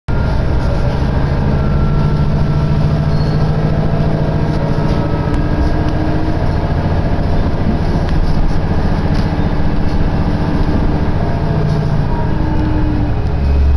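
A KiHa 110-series diesel railcar running along the line, heard from inside the car: a steady rumble of engine and wheels on the rails, with low steady hum tones from the engine and drivetrain that shift a few times.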